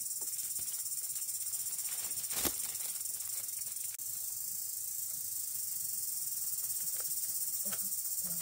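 Steady high-pitched drone of forest insects, with a single sharp knock about two and a half seconds in and a few light taps near the end as split bamboo slats are handled and tied.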